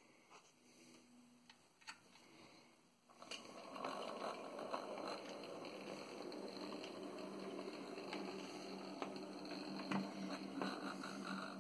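OO gauge model tank locomotive running along the track: its small electric motor whirs and the wheels rattle and click over the rails. The running sound sets in about three seconds in and then stays steady.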